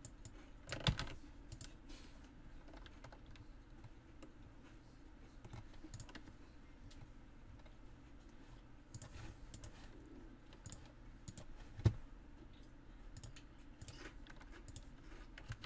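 Faint, scattered clicks of a computer keyboard and mouse being used, with a louder knock about a second in and one sharp click later on.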